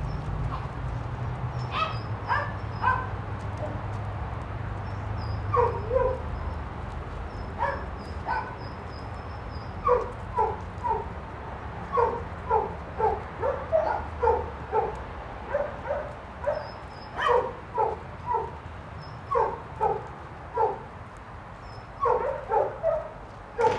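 A dog barking repeatedly in short, sharp barks, a few at first and then in quick irregular runs from about ten seconds in, over a low steady rumble.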